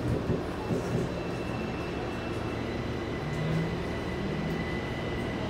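Inside a Taipei Metro C321 train: the steady rumble of the car running, with a faint steady whine and a few low thumps in the first second.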